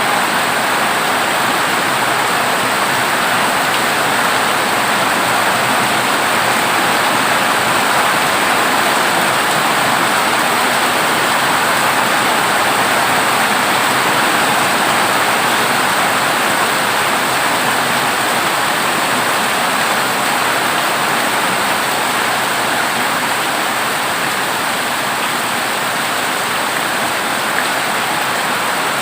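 Heavy rain drumming on a corrugated zinc roof, a steady, even downpour.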